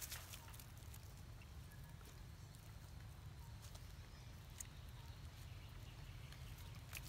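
Quiet outdoor ambience: a steady low rumble with a few faint scattered clicks, about one near the start and one a little past halfway.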